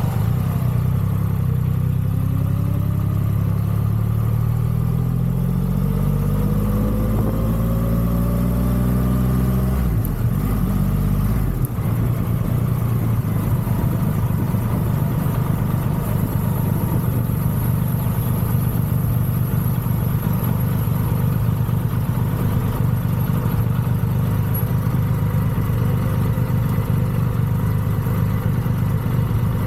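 Triumph Rocket 3 motorcycle's inline three-cylinder engine accelerating, its pitch rising over the first ten seconds, then settling after a short break into a steady drone at cruising speed.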